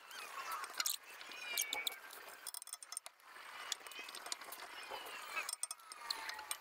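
Rusted exhaust pipe being twisted and worked in its seized slip joint at the muffler: short, high metal-on-metal squeaks and scattered clinks as the joint loosens.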